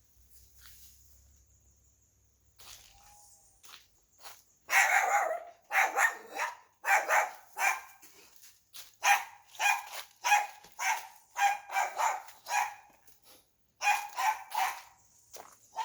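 A guard dog barking repeatedly in quick runs of loud barks, starting about five seconds in.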